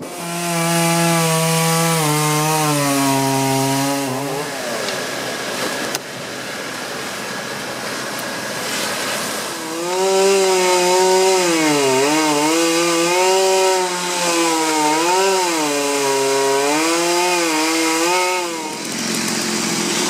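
Gas chainsaw cutting through a fallen cedar trunk. The engine pitch sags and recovers again and again as the chain bites into the wood. It runs loud for about four seconds, goes quieter and rougher for about five, then cuts hard again until shortly before the end.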